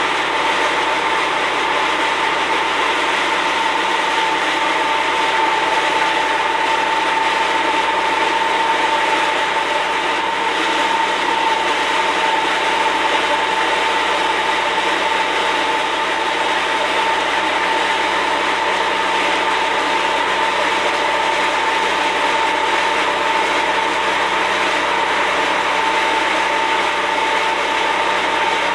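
Lumber Smith portable band sawmill running steadily, its engine-driven band blade sawing through oak, with a constant whine over the machine noise.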